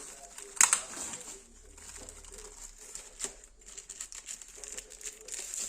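A few sharp clicks and knocks from handling, the loudest a little over half a second in and another about three seconds in, over quiet room noise.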